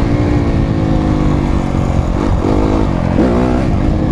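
Dirt bike engine idling, with two short throttle blips about two and three seconds in.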